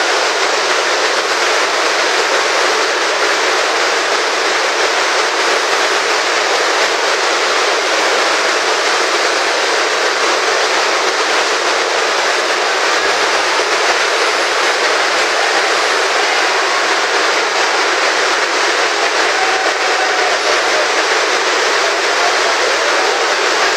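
Heavy rain hissing steadily on the canvas of a large event tent.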